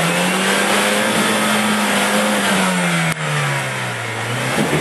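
Opel Frontera 4x4's engine working under load through deep mud, its note rising a little and then falling away near the end, with one sharp knock about three seconds in.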